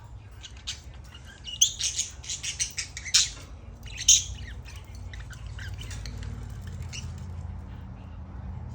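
Budgerigar chirping: a quick run of sharp, high chirps in the first half, then only a few faint chirps over a low steady hum.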